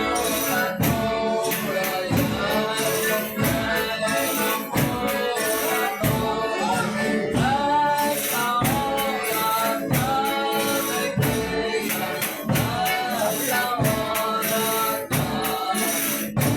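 Folia de Reis company performing: voices singing together over tambourine-type percussion keeping a steady beat.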